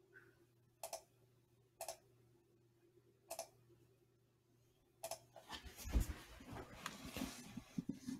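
Computer mouse clicking four times, about a second or more apart, then a busier clatter of keyboard typing and desk knocks over the last three seconds, with a low thump about six seconds in.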